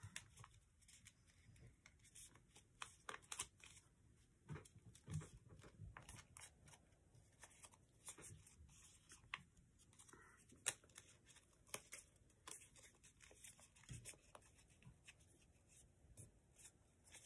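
Faint, irregular crackling and crinkling of thick, many-layered paper being folded and creased by hand, a scatter of short ticks with no steady sound.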